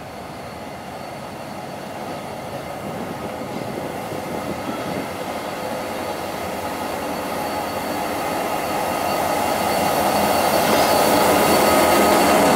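GT22 diesel locomotive hauling a passenger train slowly past, its engine and wheels on the rails growing steadily louder as it draws near. A few steady high tones run through the sound.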